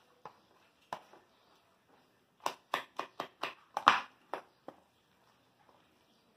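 A knife chopping vegetables on a cutting board: a few single chops, then a quick run of about eight sharp chops in a little over two seconds, the loudest near the middle of the run.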